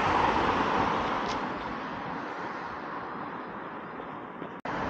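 Road traffic noise: a broad rush, loudest at first and fading over the next few seconds, with a brief dropout near the end.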